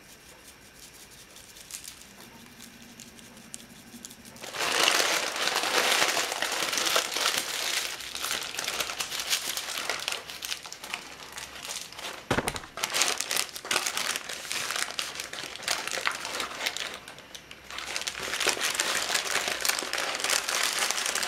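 Baking paper being folded and crumpled around a whole fish in a metal roasting tray: quiet for the first four seconds or so, then steady crinkling for the rest, with one short knock about twelve seconds in.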